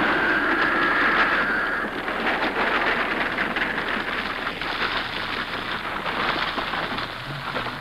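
Steady rushing, wind-like noise that slowly fades, with a high held tone over it in the first two seconds.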